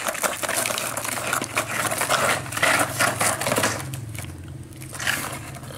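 Plastic toy excavators and trucks scraping, crunching and knocking through sand, in a busy run of short scratches and clicks. A faint low hum runs underneath from about a second in.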